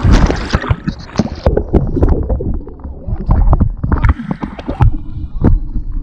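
River water splashing around an inflatable raft as a hand and paddle dip in, loudest in the first second and a half, followed by a string of knocks and bumps from the paddle and rubber raft tubes jostling against the camera.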